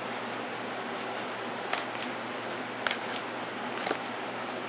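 A cardboard shipping box being stabbed and pried open: three sharp snaps about a second apart over a steady hiss.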